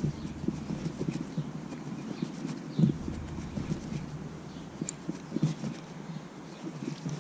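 Close handling noise from a spinning rod and reel being worked to retrieve a lure: irregular soft knocks and rustling, with a few sharper knocks, the loudest about three seconds in.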